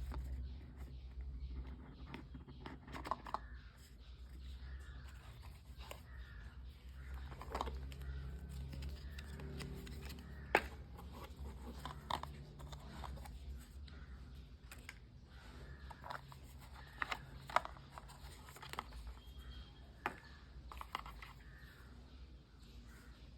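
A smartwatch box being unpacked by hand: scattered clicks, taps and brief rustles of cardboard and plastic packaging over a low steady hum.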